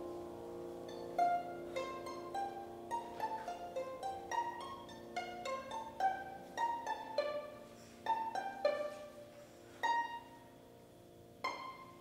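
Violin and piano playing without the voice: a held chord fades, then sparse, short, plucked-sounding high notes follow one another irregularly over a faint sustained low note, the last one near the end.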